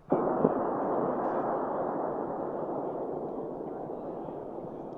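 High-power rocket motor roar that starts suddenly with a sharp crack or two and then fades steadily as the rocket climbs away.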